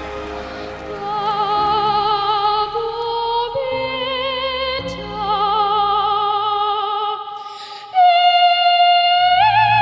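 A young girl singing opera in a high soprano voice with wide vibrato over instrumental backing. About eight seconds in she launches into a loud held high note that steps higher near the end.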